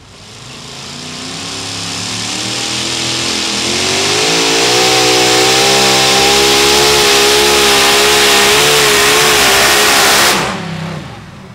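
Supercharged engine of a two-wheel-drive super modified pulling truck at full throttle as it drags the weight sled. It grows louder over the first few seconds and then runs steady and loud with a slight waver in pitch, until it cuts off suddenly near the end.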